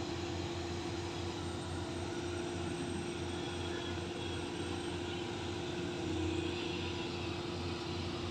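Steady machine drone with a rushing, hissing noise, from a sand-dredging pipeline's outlet spraying water and sand, driven by its pump. It runs unbroken, without rising or falling.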